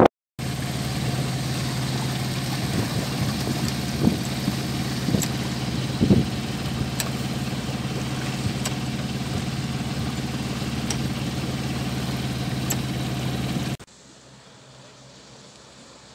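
Sadler 26 sailing yacht's engine running steadily while motoring, with a few sharp clicks and knocks over it. Near the end it cuts off abruptly to a faint hiss.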